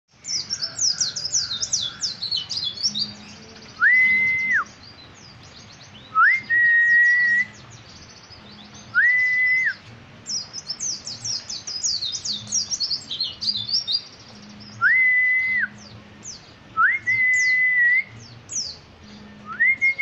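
Caged pleci (white-eye) singing: clusters of fast, high, sweeping twitters. About six loud, clear, level whistles of roughly a second each come between the clusters and are the loudest sounds.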